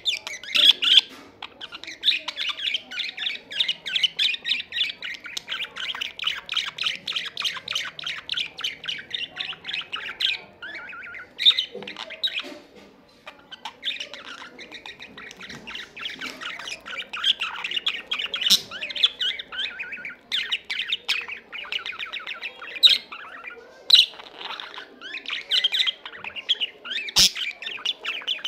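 Male budgerigar warbling: a long, fast stream of chattering and clicks with sharper squawks mixed in, pausing briefly a couple of times.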